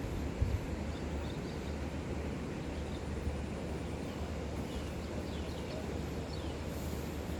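Steady outdoor background noise with a low rumble, with a few faint bird chirps.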